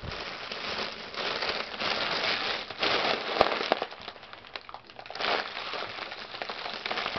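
Silver foil balloon crinkling and crackling as it is squeezed in the hands and held to the mouth to breathe from. The crinkling comes in several spells with short pauses, and there is a single sharp click a little past the middle.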